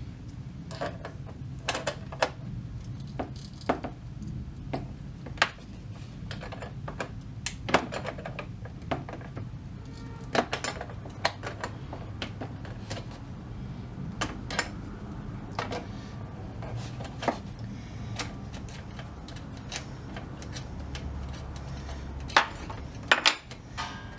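Irregular small metallic clicks, clinks and taps of hand tools and small parts being handled on an old tube radio's chassis, over a steady low hum, with a few louder clicks near the end.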